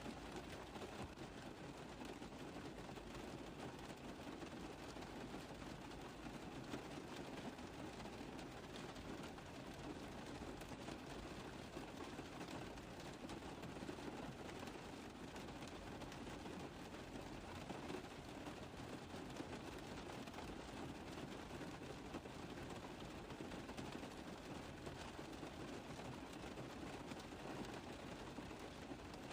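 Steady rain tapping on a car roof: an even, unbroken patter of many small drops.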